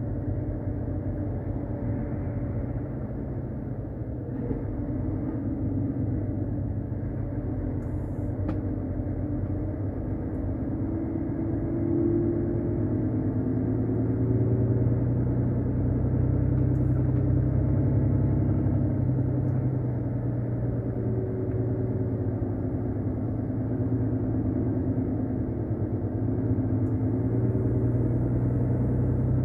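Truck's diesel engine running as it drives slowly in traffic, heard from inside the cab as a steady, muffled low drone. It grows a little louder about halfway through.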